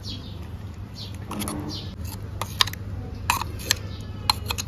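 Steel spoon scraping thick mint chutney paste out of a steel mixer-grinder jar into a ceramic bowl, with several sharp clinks of the spoon on the jar and bowl in the second half.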